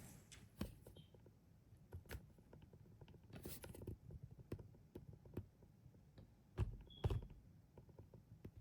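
Faint scattered clicks and knocks of plastic and metal parts being handled while an LED video light and its desktop stand are set up, with two louder thumps near the end.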